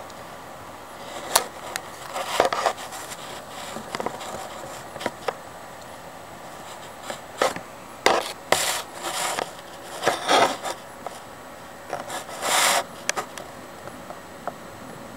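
Handling noise on the recording device: a string of short, irregular rubbing and scraping sounds, most of them in the second half.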